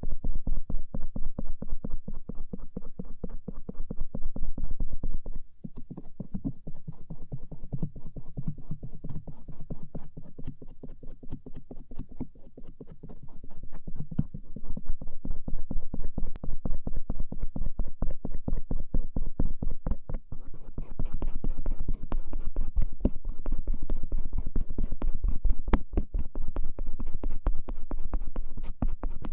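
Bamboo ear pick scraping and rubbing over the outer ear in a fast, continuous run of small scratching strokes, turning brighter and crisper about two-thirds of the way in.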